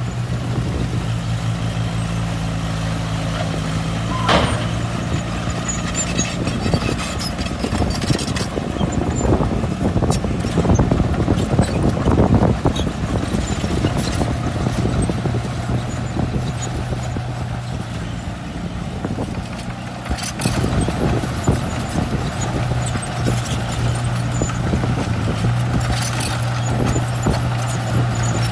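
Heavy diesel earthmoving machinery running steadily, with scattered clanks and rattles and a louder stretch about a third of the way in.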